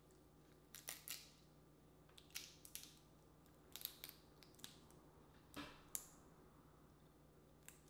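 Boiled crawfish shells cracked and peeled apart by hand: scattered short, sharp cracks and crackles in small clusters, the loudest about six seconds in.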